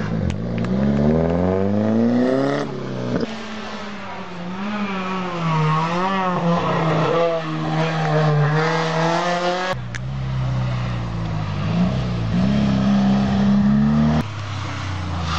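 Rally cars accelerating hard through a hillclimb hairpin one after another, engines revving up and wavering through gear changes. The engine sound changes abruptly three times as one car gives way to the next.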